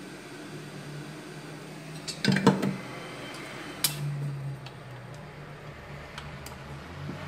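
Small hard objects being handled on a work surface: a quick cluster of clicks and knocks about two seconds in, a sharp click a little later, then a few light ticks, over a low steady hum.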